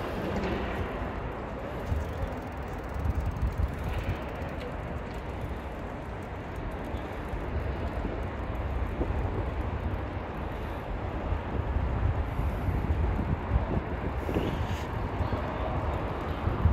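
Wind buffeting the microphone: a low, gusty rumble that swells a few seconds in and again later on, over a steady outdoor city hum.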